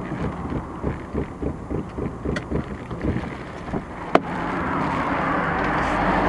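Car running noise from a dashcam, with soft low thumps about four a second for the first few seconds and a sharp click about four seconds in. After that a rush of road and engine noise grows louder.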